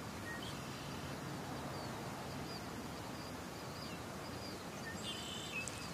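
Steady outdoor background hiss with faint, scattered bird chirps, a few more of them near the end.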